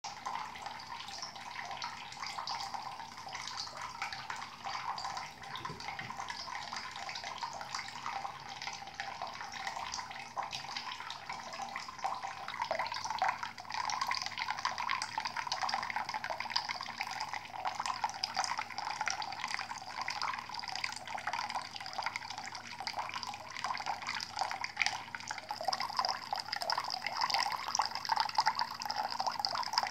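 Thin stream of water from a mixer tap running steadily into a ceramic sink basin, a continuous splashing trickle that grows louder about twelve seconds in.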